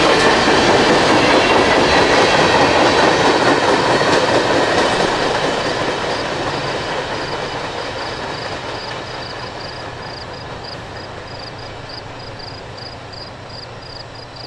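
CSX freight train cars rolling past on the rails, the rolling noise fading away from about five seconds in. As it fades, crickets chirp steadily, about two to three chirps a second.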